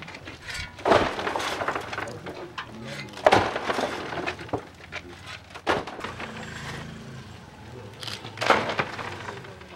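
Shovelfuls of gravelly soil dropped into a grave, four in turn about two and a half seconds apart, each landing as a sudden rush of earth and small stones that trails off over about a second.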